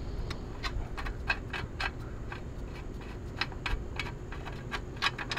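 Irregular small clicks and ticks of hands fitting a rubber fuel line and plastic inline fuel filter onto a mini bike's auxiliary fuel tank, over a steady low rumble.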